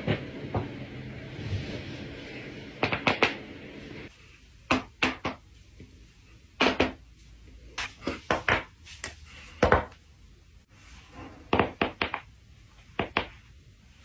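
A person's joints being cracked: loud sharp pops in quick clusters of two to four, with short pauses between.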